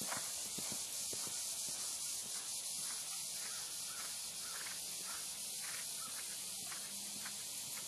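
Hoofbeats of a bay pony mare cantering on turf, clearer in the first second and then faint and irregular as she moves away, over a steady outdoor hiss.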